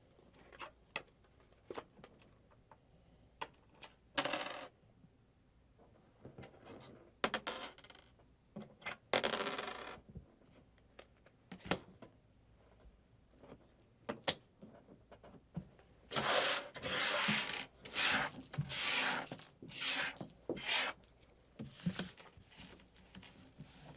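Coins clinking and playing cards sliding and being handled: scattered sharp clicks and short swishes, growing busier for several seconds in the last third.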